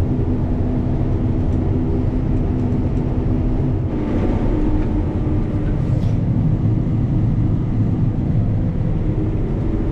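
Combine harvester running steadily while cutting soybeans, a constant engine and machinery drone whose hum steps up slightly in pitch about four seconds in.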